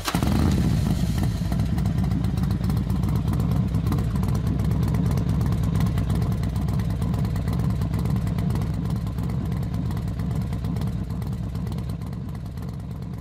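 Racing motorcycle engines running: a loud, steady low rumble that fades a little near the end.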